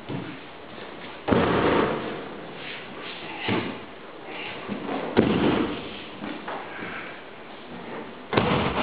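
A partner thrown repeatedly in aikido and landing in breakfalls on the tatami mats, four heavy thuds and slaps of body on mat with cloth rustling between them.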